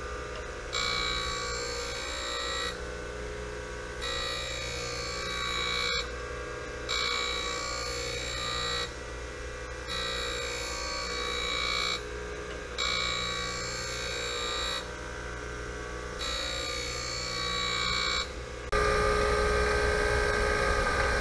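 Surface grinder dry grinding a camelback straight edge casting: a ringing, whining grind lasting about two seconds, then a quieter second as the table reverses, repeating every three seconds or so. Near the end it turns into a louder, steadier grind.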